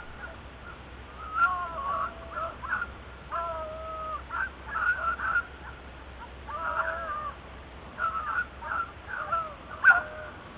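Beagles baying in short, repeated bouts of pitched, bending cries, sometimes overlapping. This is the cry of hounds giving tongue while running a rabbit's scent trail.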